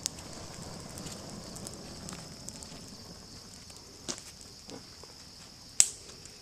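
Small tinder fire of birch bark and a dried bird's nest crackling, with a few sharp pops, the loudest near the end.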